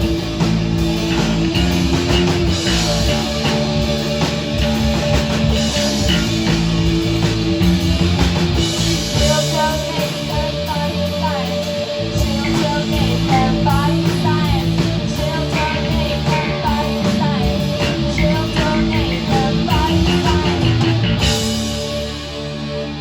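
Live rock band playing a loud song with electric guitars, bass and drums. The full band cuts out about 21 seconds in, leaving a guitar ringing on.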